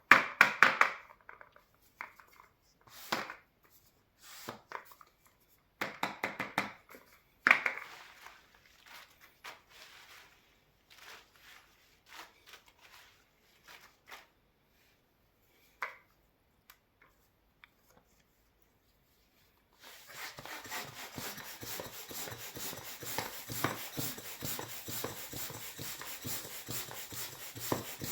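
Rubber balloons being handled: scattered short rubs, squeaks and taps for about the first sixteen seconds, then after a pause a steady, rapid rasping rub of rubber.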